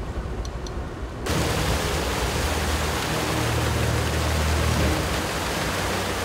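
An off-road vehicle's engine runs low, then about a second in a loud, steady rush of water spray starts as its big lugged tire churns through a flooded trail, with the engine droning underneath.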